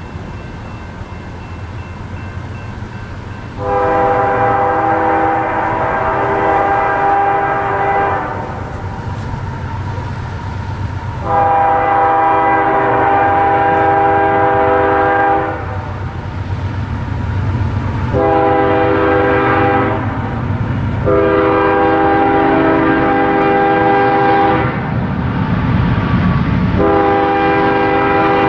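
CSX freight locomotive's air horn sounding a series of steady chord blasts: two long, one short, one long, then another long one starting near the end. This is the grade-crossing signal of the approaching train. Under the horn there is a low diesel rumble that swells as the train nears.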